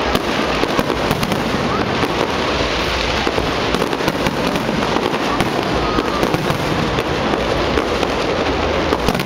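Aerial fireworks shells bursting and crackling in quick succession, a dense continuous run of pops and crackles with no pause.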